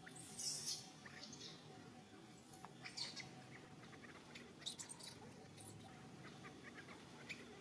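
Newborn baby macaque giving several short, high-pitched squeals in distress, the loudest about half a second in.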